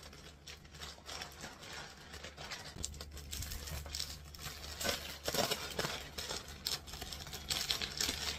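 Plastic packaging rustling and crinkling as a courier mailer bag is torn open and a garment in a clear polythene bag is pulled out and handled, in irregular bursts that grow louder in the second half.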